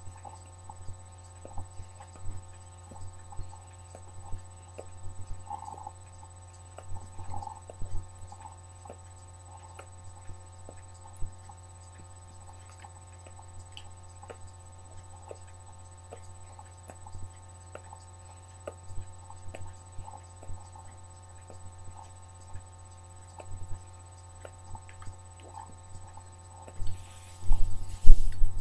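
Tobacco pipe being puffed while a flame is held to the bowl to light it: small soft lip pops and clicks over a steady low hum. Near the end comes a louder breathy blow.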